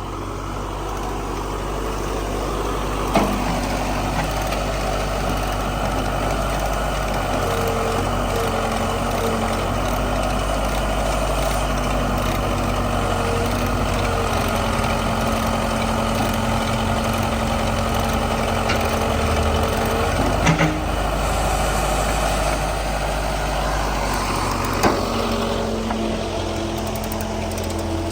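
Case 580B backhoe's engine running steadily under load while the machine works itself onto a trailer. A few sharp knocks come through, about three seconds in, near twenty seconds and again near twenty-five.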